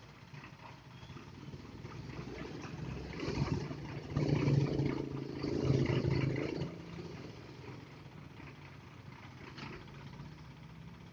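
Light dump truck's engine idling with a steady low hum, growing louder for about two and a half seconds about four seconds in, then settling back to a quieter idle.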